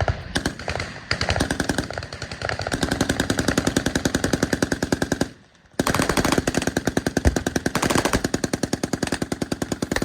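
Machine guns firing on full automatic in long, rapid bursts, with a brief pause about halfway before the firing resumes.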